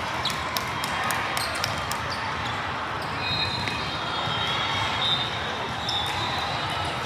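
A volleyball bouncing and being struck on a hard court floor several times, with short high shoe squeaks, over a steady murmur of crowd voices in a gym.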